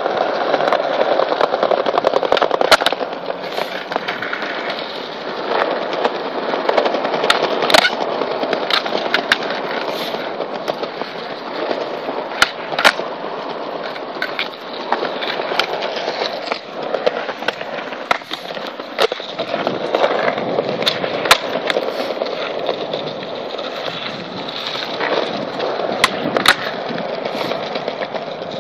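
Skateboard wheels rolling over brick paving with a steady rough rumble, broken again and again by sharp clacks of the board being popped and landing.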